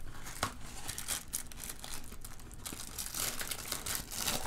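Cardboard food box being opened by hand: irregular crinkling and small tearing sounds with scattered light clicks as the flap is worked open.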